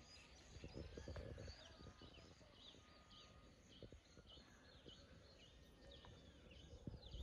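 Faint bird chirps, many short high calls scattered throughout, over near silence with a few soft low knocks.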